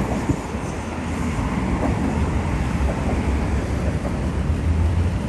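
City street ambience: a steady low rumble with no single event standing out.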